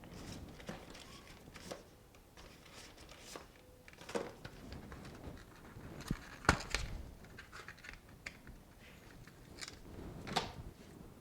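Scattered small clicks, taps and rustling of small parts being handled on a workbench, with a sharper tap about six and a half seconds in and another near the end.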